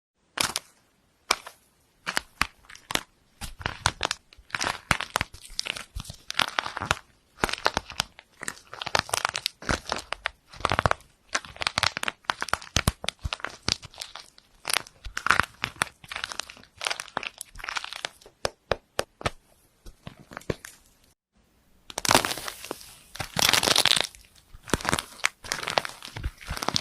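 Slime being squeezed and pressed by hand, giving many short crackles and pops in quick, irregular succession. A brief gap a little over three quarters of the way through, after which the crackling is denser and louder.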